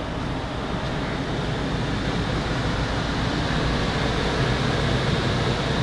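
Steady rumbling background noise with no distinct events, slowly getting a little louder.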